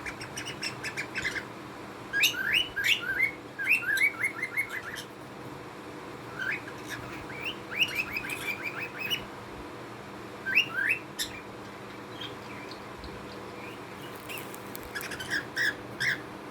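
Small cage birds chirping in quick runs of short, sharp notes, about three or four runs separated by pauses, over a faint steady electrical hum.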